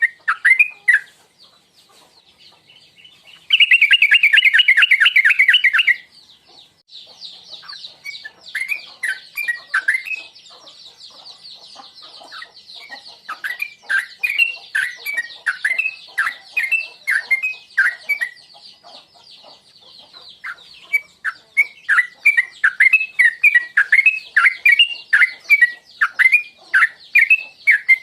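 Yellow-vented bulbul (trucukan) calling: a fast, dense chattering trill for a couple of seconds, then series of short, bubbly, falling notes repeated in loose runs, over a steady high-pitched background chorus.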